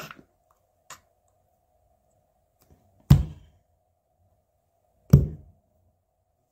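Two heavy thuds about two seconds apart, each dying away quickly, after a light click about a second in. A faint steady hum sits underneath.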